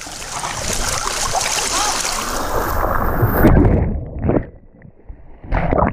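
Loud, steady rush of mountain-stream water that cuts off abruptly about three and a half seconds in, followed by two short bursts of sound.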